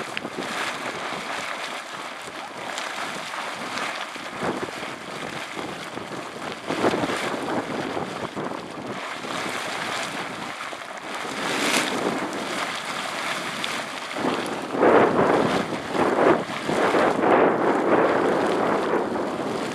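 Boiling hot spring churning and splashing, a steady rushing, gurgling water noise that swells into louder surges about three-quarters of the way through.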